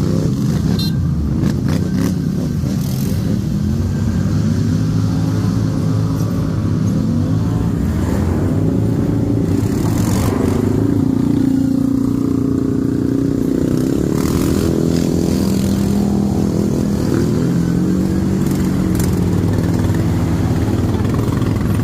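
ATV engines running under load, their pitch rising and falling repeatedly as the throttle is opened and eased off.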